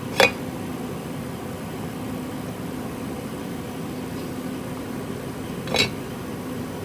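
A steady mechanical hum with two sharp knocks, one just after the start and one about five and a half seconds later: parts being handled while the cylinder is fitted onto the engine's lower end.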